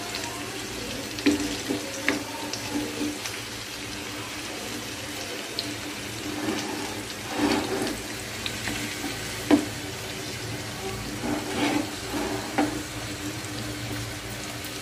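Masala- and gram-flour-coated fish pieces frying in oil in a black pan, a steady sizzle. A wooden spatula scrapes and knocks against the pan several times as the pieces are turned.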